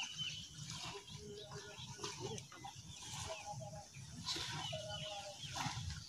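Rural outdoor ambience: chickens clucking and small birds chirping over a low rumble.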